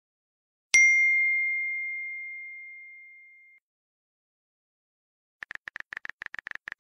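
A single bell-like chime, a text-message sound effect, struck once and ringing out as it fades over about three seconds. Near the end, a quick run of phone keyboard typing clicks, about ten a second.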